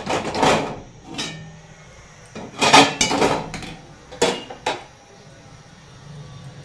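Spatula scraping and knocking against a stainless steel bowl of curry, in a series of short clattering scrapes. The loudest come about three seconds in, and two sharp knocks follow about a second later.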